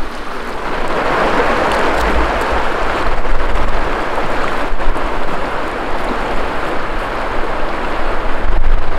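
Kali Gandaki river rushing in a steady loud hiss, with wind buffeting the microphone in a low rumble.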